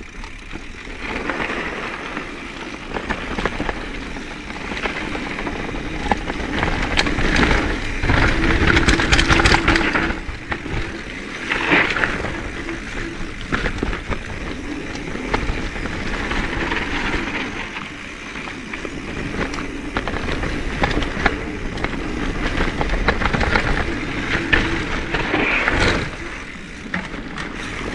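Mountain bike riding down a dirt trail, picked up by a GoPro action camera: a steady rush of tyres rolling over dirt and rocks, with frequent rattles and knocks from the bike.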